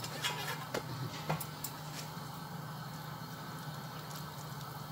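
Steel pot of water with cauliflower florets heating on a gas stove: a low steady hum, with a few light knocks in the first second and a half as the florets are stirred in the pot.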